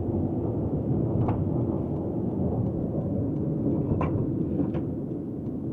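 Steady low road rumble inside a moving car's cabin, with three faint ticks.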